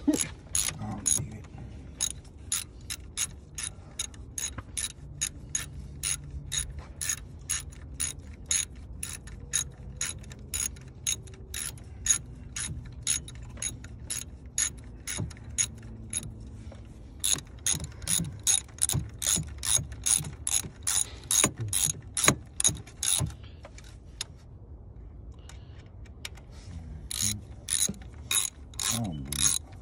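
Hand socket ratchet clicking as it turns the bolts of an engine cover, a steady run of sharp clicks, two to three a second. The clicks stop for a few seconds near the end, then start again.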